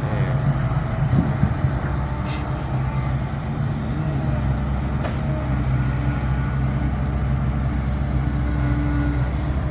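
Dump truck's diesel engine idling steadily, with a couple of brief knocks in the first few seconds.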